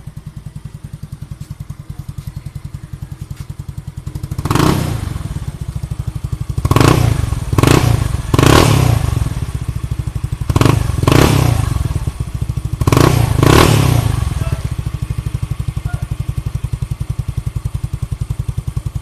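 Motorcycle with an Apido chicken pipe exhaust idling with a steady low pulse, then revved in short throttle blips, about eight in quick pairs and clusters from about four seconds in to about fourteen seconds, before settling back to idle.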